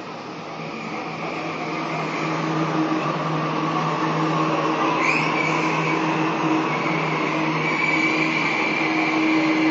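Sydney Trains Waratah A-set electric train running past, its traction motors giving a steady multi-tone whine. It grows louder over the first three seconds, then holds.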